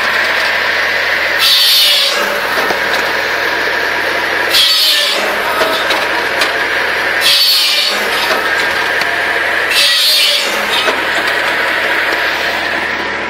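Balfor SC 700C tractor-mounted circular firewood saw running steadily while its blade cuts through a log four times, each cut a high-pitched whine lasting under a second, about every two and a half seconds.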